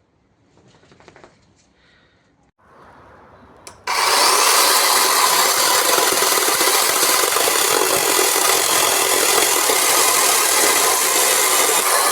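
OUTIGO cordless 12-inch electric mini chainsaw cutting into wood: after light handling noises and a quieter start, the saw's cutting noise comes in loud and steady about four seconds in and holds.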